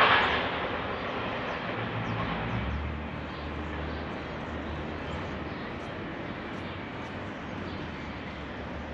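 Freight train receding after passing: a loud rush of rail noise at the start dies away over the first few seconds to a low steady rumble.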